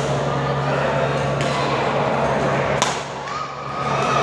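Badminton hall ambience: a steady babble of spectators and players over a constant low hum, with two sharp knocks of rackets striking shuttlecocks, the second one, near three seconds in, the loudest.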